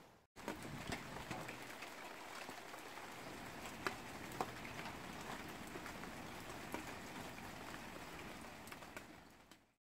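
Rain falling on a garden: a steady even hiss with scattered sharp drip ticks, two louder drops about four seconds in. It fades out just before the end.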